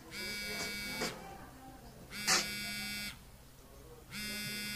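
Mobile phone ringing with a buzzy electronic tone: three rings of about a second each, a second apart. A short, sharp, louder sound comes between the first and second rings.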